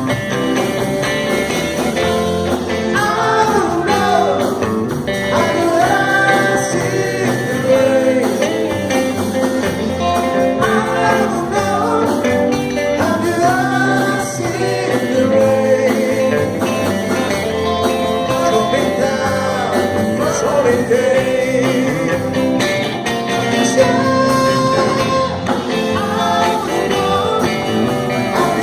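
Rock band music: guitar-led band playing with a singing voice over it.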